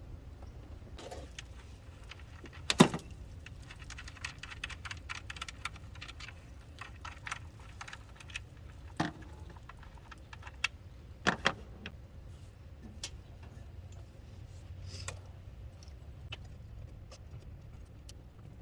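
Hand tools and metal parts clinking and knocking during engine work: a sharp clank about three seconds in, a run of light rattling clicks after it, and a few more clanks near the middle.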